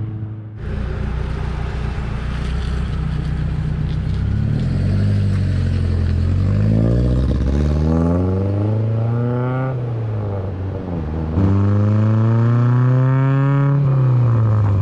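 1970 Datsun 510's four-cylinder engine (Z22 block with an L20B head) running under load through the gears. It runs fairly steadily at first, then revs up from about six seconds in, drops at a gear change about ten seconds in, and climbs again before easing off near the end.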